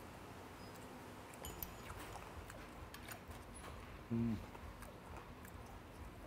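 Quiet chewing of fermented skate, with faint scattered mouth clicks. A short hummed "mm" a little after four seconds is the loudest sound.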